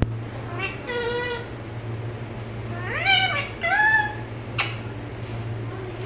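Indian ringneck parakeet vocalizing in three short, high-pitched utterances that bend in pitch: one about a second in, then two close together around three to four seconds in, followed by a sharp click. A steady low hum runs underneath.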